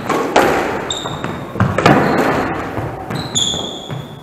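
Squash ball being struck and rebounding off the court walls: several sharp echoing smacks spread over a few seconds, with short squeaks of shoes on the wooden floor between them.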